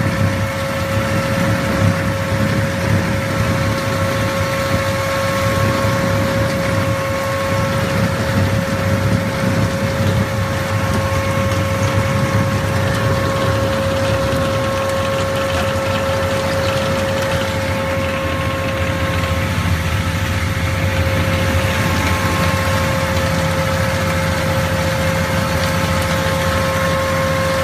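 Tractor engine running steadily while driving a tractor-towed sweeper nut harvester, with a constant whine over the low engine hum.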